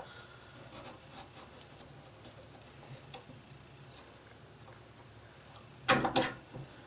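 Small hand tools and steel leader wire being handled on a workbench, with faint scattered ticks. About six seconds in, a loud brief clatter of metal tools knocking together.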